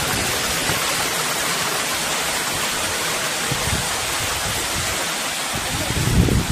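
Steady, even rush of running water. Low rumbling joins near the end.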